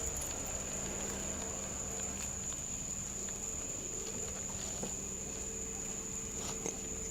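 Steady, unbroken high-pitched trill of insects over a faint low steady hum, with a few faint clicks.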